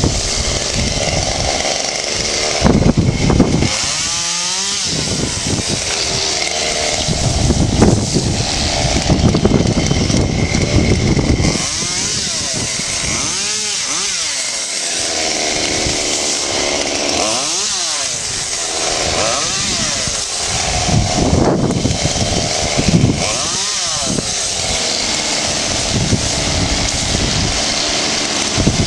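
Two-stroke chainsaw running hard, its pitch repeatedly rising and falling as it is revved and eased off, several times over.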